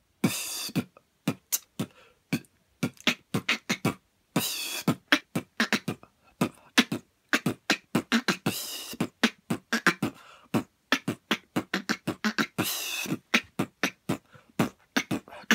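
Solo vocal beatboxing in a house style: a fast, steady run of sharp mouth-made kick, snare and hi-hat sounds, with a longer held, pitched synth-like sound recurring about every four seconds.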